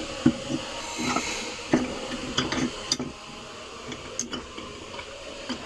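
Metal parts of a car starter motor clinking and tapping as they are fitted together by hand: a scatter of sharp clicks and knocks, most of them in the first three seconds.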